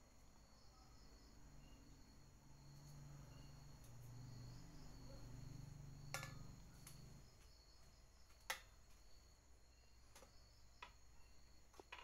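Faint night insects, crickets trilling steadily in the background, with a low hum in the first half and a few sharp clicks, the loudest a little past the middle.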